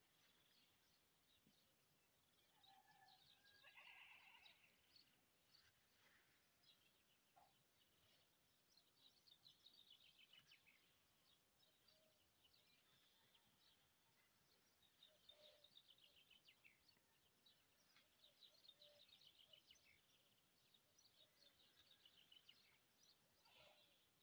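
Very faint birdsong: small birds chirping and trilling in quick runs, with one brief lower animal call about three to four seconds in.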